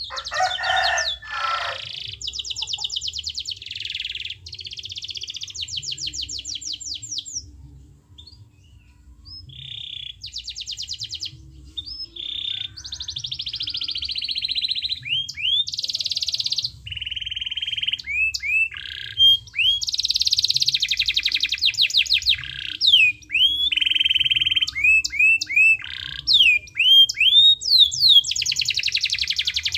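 Domestic canary singing a long, varied song of fast trills and rolls with sweeping rising and falling whistled notes, opening with a brief harsher burst and pausing briefly about eight seconds in.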